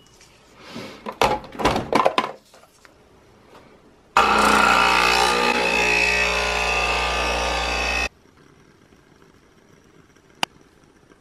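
Clicks and knocks of a coffee capsule being loaded and the machine closed, then a capsule coffee machine's pump running steadily with a low hum for about four seconds as it brews into a mug. The pump starts and stops abruptly, and there is a single click near the end.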